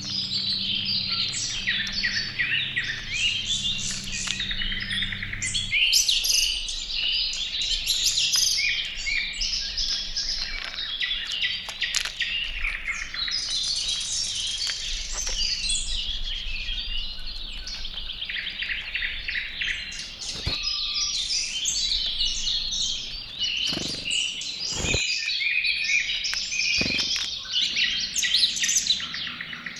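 Many small songbirds chirping and calling at once, dense and overlapping throughout. A steady low hum runs for the first six seconds and then stops abruptly. A few short knocks sound in the second half.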